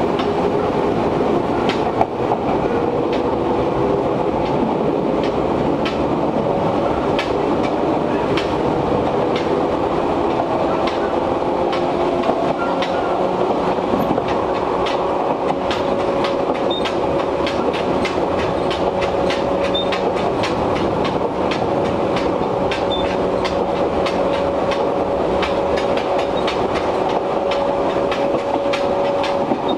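Izuhakone Railway 1300 series electric train heard from inside the car while running: a steady running noise with strong air-conditioning, and a whine that rises slowly in pitch as the train gathers speed. A quick run of sharp clacks comes through in the second half.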